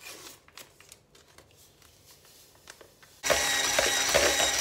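A few faint clicks, then about three seconds in an electric mixer starts abruptly and runs loudly with a steady whine, whipping liquid cream with powdered whipped-cream mix.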